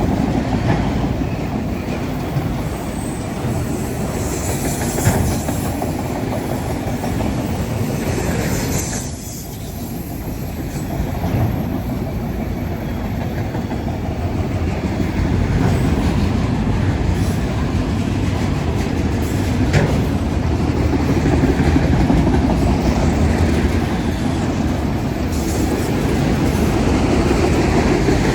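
Freight cars of a passing CSX train rolling by, a steady rumble with the clickety-clack of wheels over rail joints, easing briefly about nine seconds in.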